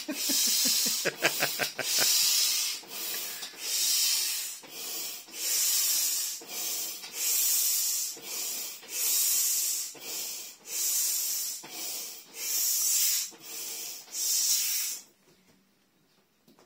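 Hand air pump forcing air through the valve of an inflatable vinyl tiger pool toy: a rhythmic hiss with each pump stroke, a little more than one a second, stopping about a second and a half before the end.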